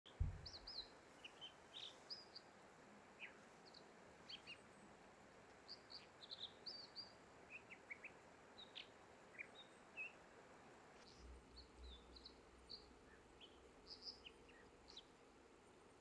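American dipper singing: a long run of short, high, varied chirps and whistled notes, over a faint steady hiss of flowing water. A brief low thump at the very start.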